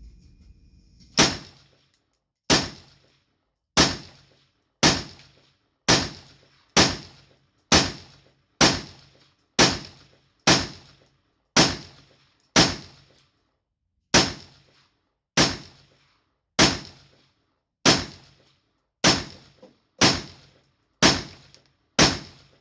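16-inch AR-15 rifle firing 55-grain .223 rounds in steady semi-automatic fire, about one shot a second, twenty shots in all, each with a short echo after it. The string empties a 20-round magazine.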